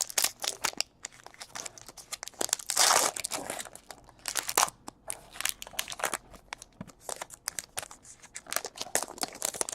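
Trading card pack wrappers crinkling and being torn open, with a longer tearing rustle about three seconds in and many small clicks and rustles of handling throughout.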